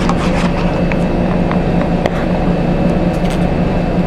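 Steady mechanical hum throughout. Near the start come a few light clicks of a straw stirring ice in a paper cup.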